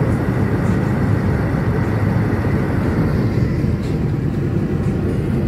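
Steady road noise inside a moving car's cabin: engine and tyre noise at highway speed, a constant low rumble.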